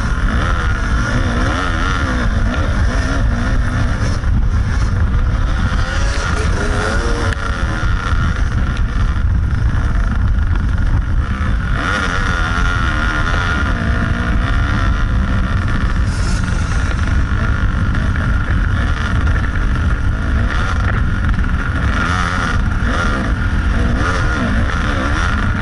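Kawasaki KDX 220 two-stroke dirt bike engine running under load, its revs rising and falling as it rides over rocks, with heavy wind noise on the microphone.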